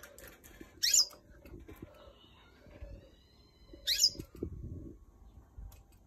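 Caged canaries calling: two loud, short, sharply rising chirps about three seconds apart, with a faint, thin warbling call between them.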